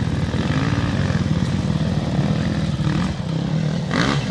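Dirt bike engine running at low revs with a steady, fast throb, then revved up near the end as the bike pulls up the climb.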